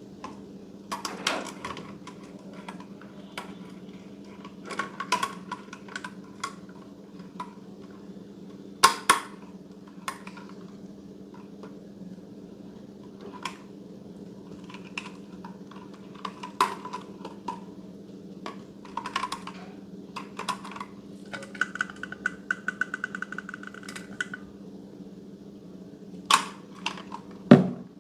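Slime being handled: scattered sticky clicks and pops, with a rapid run of crackling clicks for about three seconds past the middle, over a steady low hum.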